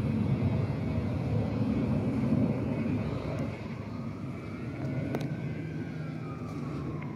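Distant airshow aircraft performing aerobatics overhead: a low, steady engine rumble that eases a little about halfway through. A faint whine rises and then falls in pitch during the second half.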